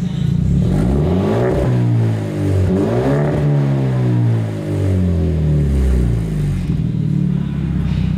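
Hyundai Genesis Coupe engine heard through a newly fitted aftermarket catback exhaust: idling, blipped up in revs a few times, then settling back to idle near the end.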